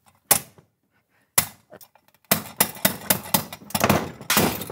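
Small hammer striking the glass front of a wall-mounted break-glass box: two single knocks, then a rapid flurry of about a dozen strikes in the second half.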